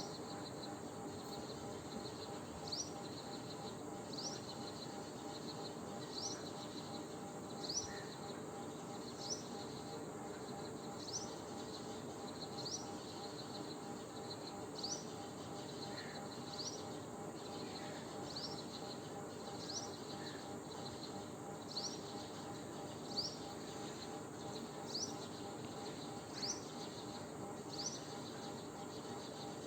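A short, high chirp rising in pitch, repeated about every second and a half over a steady low hum.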